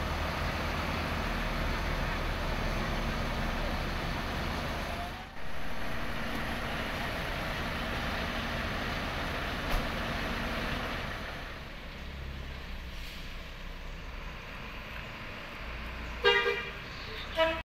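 Coach bus engine running steadily, then the bus's horn toots briefly about 16 seconds in as it moves off.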